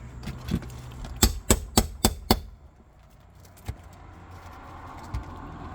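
Five quick, sharp hammer strikes, about four a second, from a roofer's 5-in-1 hammer working a nail loose on an asphalt shingle roof. A single faint knock follows.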